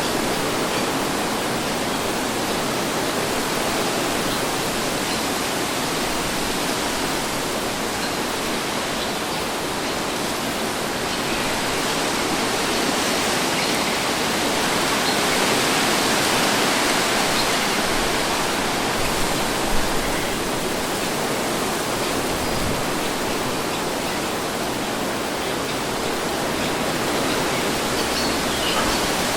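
Steady wind noise, a broad even rush that swells gently about halfway through and eases off again, with one brief sharp tick about two-thirds of the way in.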